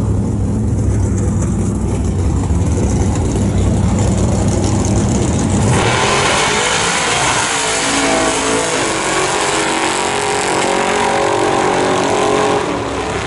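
A mini truck and a turbocharged Mustang drag racing: engines idle and rumble at the starting line, then about six seconds in both launch at full throttle with a sudden jump in loudness, the engines revving up through the gears as they pull away down the strip. The sound eases off near the end as the cars get farther away.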